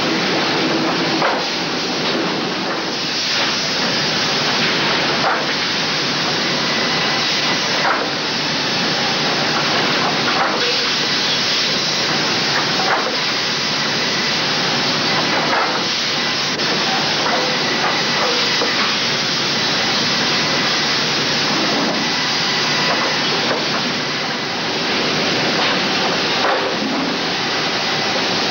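Pendu Circular Line Bar double-arbor multi-saw resaw running under load: a loud, steady rush of noise from its circular saws, motors and feed, with a knock now and then as boards move through.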